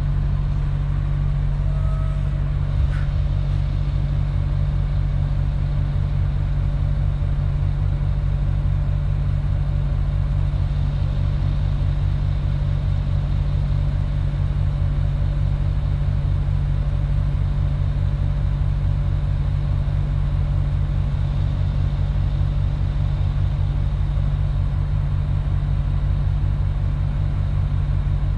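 MAN TGX 18.470 truck's 12.4-litre straight-six diesel idling steadily, heard from inside the cab with the truck standing still.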